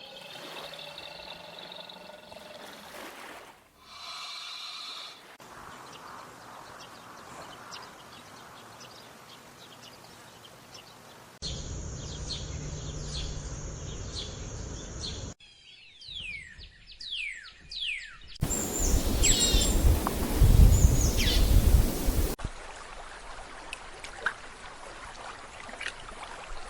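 A run of short outdoor animal recordings cut one after another, mostly bird chirps and calls, with quick falling whistled notes in the middle and chirps over a loud low rumble, like wind on the microphone, a little later.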